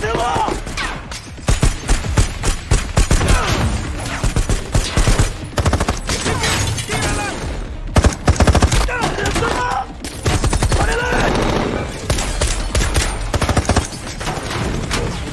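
Sustained automatic rifle fire from several guns, in rapid bursts of shots throughout.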